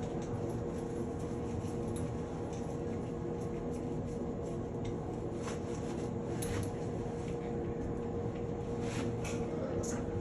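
Steady mechanical hum, with a few faint clicks and scrapes of a cartridge puller being worked on a Moen Posi-Temp shower valve cartridge.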